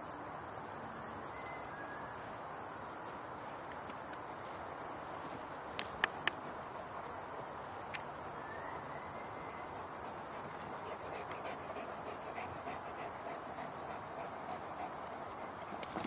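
Steady chirring of insects, with a few sharp clicks about six seconds in.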